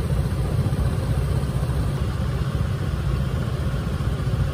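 Yamaha scooter's engine idling while stopped at a red light: a steady low rumble.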